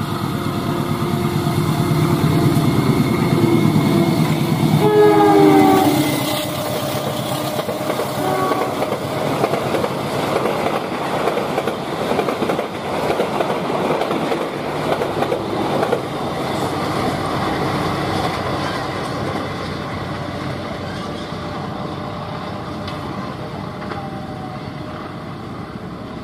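A diesel locomotive passes at close range with its engine running loud. It sounds its horn about five seconds in, the pitch dropping slightly as it goes by, and gives a shorter blast a few seconds later. After that a long passenger train's wheels clatter steadily over the rail joints, fading toward the end.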